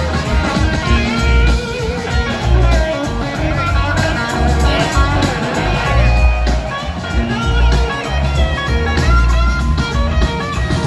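Live blues-rock band playing, with an electric guitar lead of gliding notes over drums, bass and keyboard.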